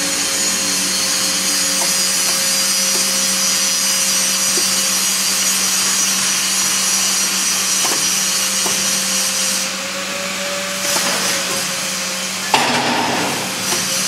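Bubble film (bubble wrap) production machine running: a steady industrial drone with a constant low hum under an even hiss. The hiss thins briefly a little before ten seconds in, and a short knock sounds about twelve and a half seconds in.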